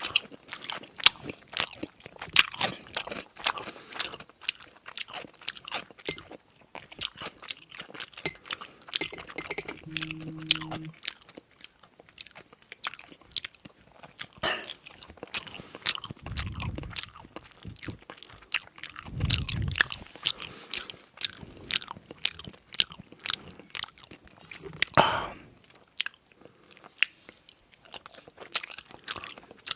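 Close-miked eating: a person chewing and biting food with many quick, wet mouth clicks and crunches, with a few louder bites along the way.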